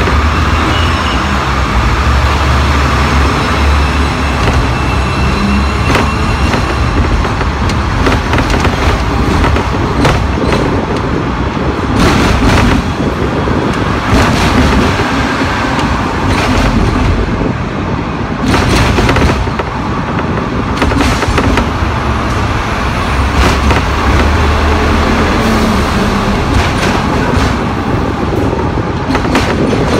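Hong Kong double-decker electric tram running along its street track, heard from the upper deck: a steady rumble of wheels on rail and the running gear, with occasional sharp knocks.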